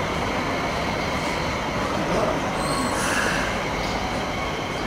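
Hong Kong Light Rail Phase IV light rail vehicle running past on the track, with a brief high-pitched squeal of steel wheels on the rail about two and a half to three seconds in.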